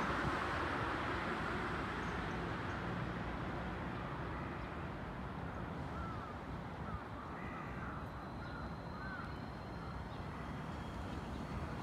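Steady outdoor traffic hum, easing slightly, with a crow cawing a quick run of about six short caws from about six seconds in.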